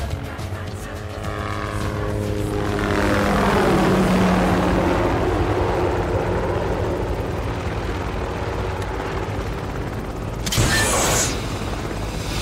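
Helicopter flying in close, its rotor and engine noise swelling to a peak with a falling pitch as it sweeps past, then running steadily. A short, loud rushing burst near the end.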